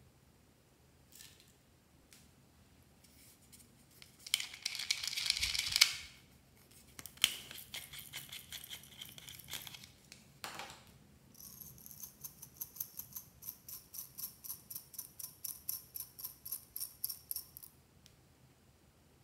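Small slime toppings, polymer-clay slices and sprinkles, pattering and rattling as they are poured from the hand into trays of slime. The pouring comes in scattered bursts and clicks through the first half. In the second half there is a regular ringing pulse at about three beats a second.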